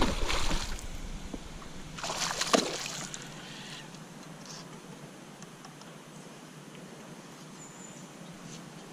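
Water splashing on the creek surface at the start and again about two seconds in, then faint trickling and lapping water.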